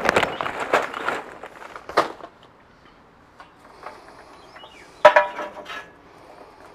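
Charcoal briquettes clattering into a metal Weber chimney starter as the pour tails off in the first second, then a sharp click about two seconds in. About five seconds in comes a clink with brief ringing, with small ticks around it, as briquettes are settled by hand in the chimney.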